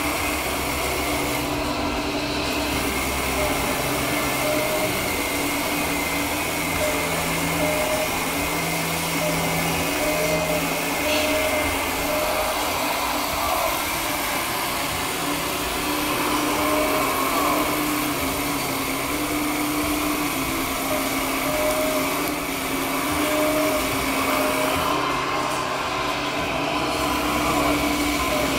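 Hydraulic pump of an RC Liebherr R934 model excavator whining steadily as the machine digs and swings, its tones shifting in steps.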